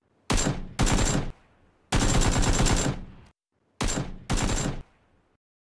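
Machine-gun fire sound effect in five short bursts, each a rapid string of shots, with dead silence between them.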